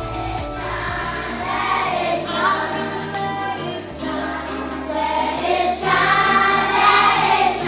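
A choir singing a song over instrumental music with held low bass notes; the voices come in about half a second in, after an instrumental passage.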